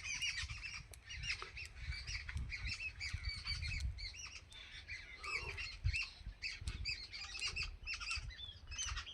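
Many small birds chirping together in a dense chorus of quick, repeated high chirps, over a low rumble of wind or handling noise on the microphone.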